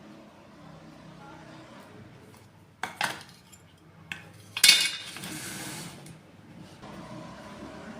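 Hard objects being handled: clinks and knocks, with a sharp double click about three seconds in and a louder clatter about four and a half seconds in, over a low steady hum.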